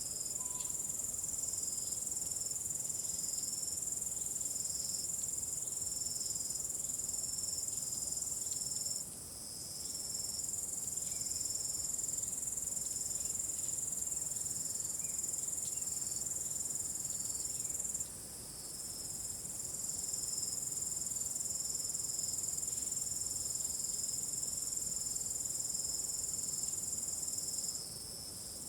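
Crickets chirping: one steady, high continuous trill with other crickets' quicker, slightly lower chirps pulsing beneath it. The trill breaks off briefly about every nine seconds.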